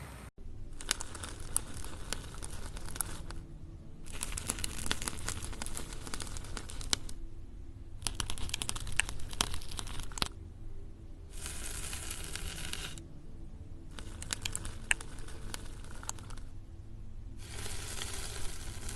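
Crisp crinkling and tearing sounds in about six spells of two to three seconds each, with short pauses between. This is something being crumpled, torn or cut by hand.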